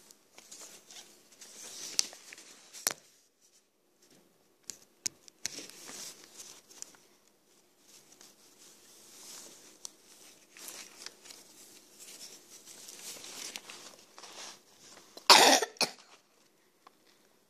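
Paper sheets rustling and being handled, with scattered taps and clicks. About two seconds before the end, one loud cough.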